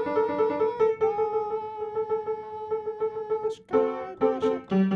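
Instrumental music: a keyboard plays quick repeated notes, breaking off briefly about three and a half seconds in before a new phrase begins.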